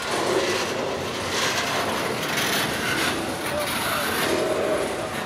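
A train rolling past on the track: a steady noisy rush of wheels on rail.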